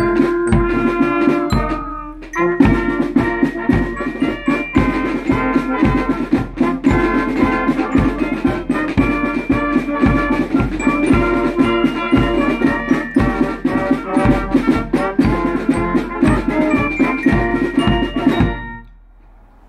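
A school wind band of brass, saxophones and bass drum playing a march, with a steady drum beat under the melody. The music briefly dips about two seconds in and ends about a second before the close.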